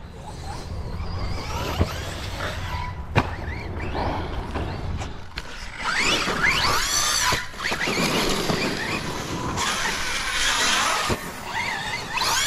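Radio-controlled car's electric motor whining, rising and falling in pitch as it accelerates and slows, loudest about six and ten seconds in. A few sharp knocks come in the first few seconds over a low rumble.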